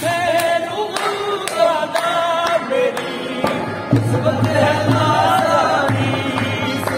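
Qawwali: male voices singing over harmonium accompaniment, with sharp hand claps about every half second. The harmonium's low drone comes back in about four seconds in.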